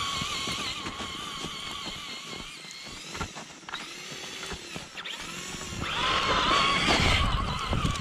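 Traxxas Stampede two-wheel-drive RC truck's electric motor and drivetrain whining under throttle. The pitch rises and falls as the throttle changes, and it is loudest about six to seven seconds in.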